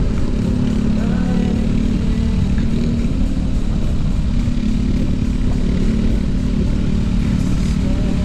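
Steady wind rumble on an action camera's microphone while riding an electric scooter through city traffic, with motor vehicles running close by.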